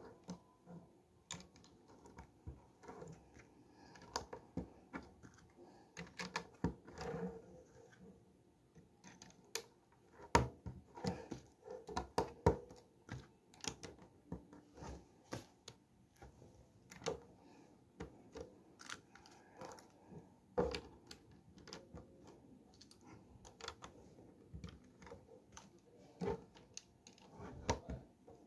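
Plastic Lego bricks clicking as fingers handle pieces and press them onto a model car: irregular sharp clicks, sometimes several a second, with a busier run of louder clicks about ten to thirteen seconds in.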